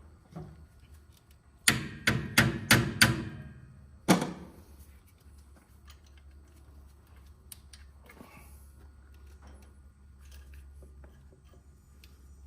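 Sharp knocks of hard parts striking, five in quick succession and one more about a second later, while a link V-belt is being worked onto a tractor-backhoe's pulleys. Light clicks and rattles of handling follow.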